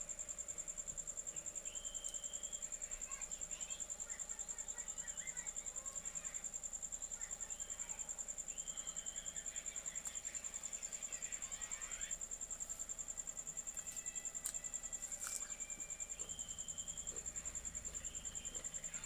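An insect, cricket-like, trilling steadily: a continuous high, rapidly pulsing trill, with a few faint short chirps beneath it.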